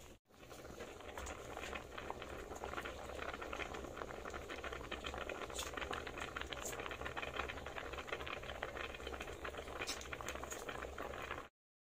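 A large pot of vegetable soup at a rolling boil over a wood fire: a steady, dense bubbling with many small pops and a few sharper ones. It cuts off suddenly near the end.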